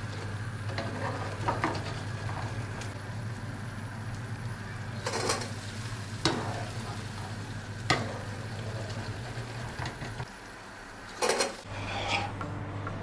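Lokma dough balls frying in oil in a nonstick frying pan with a faint sizzle, while a wire mesh skimmer scrapes and taps against the pan about half a dozen times as the balls are turned and lifted out.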